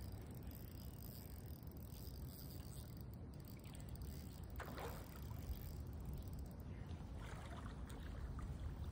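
Faint shallow-river ambience: a low, steady rumble under gently moving water, with a brief rushing splash about halfway through and a weaker one a couple of seconds later.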